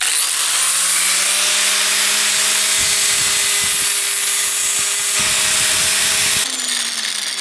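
Electric angle grinder switched on, spinning up at once and running at full speed with a loud, steady whine. The sound changes abruptly and gets a little quieter about six and a half seconds in.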